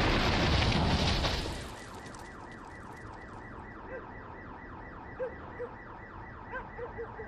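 The tail of a loud explosion, a dense noise that dies away about a second and a half in, followed by a car alarm set off by the blast, wailing in a fast repeating sweep about five times a second.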